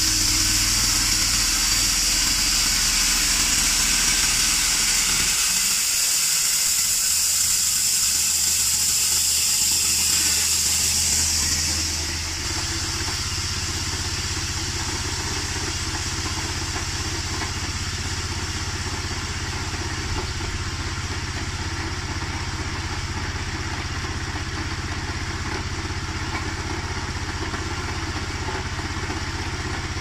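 Small single-cylinder petrol engine driving a homemade band sawmill: it runs fast with the band wheels and blade spinning and a high hiss, then about twelve seconds in it drops to idle, the clutch letting the blade stop, and idles steadily to the end.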